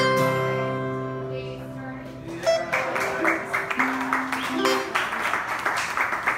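Two acoustic guitars let a final strummed chord ring out and fade over about two and a half seconds, ending the song. Then comes a jagged, noisy stretch of audience applause and cheering, with a few guitar notes plucked under it.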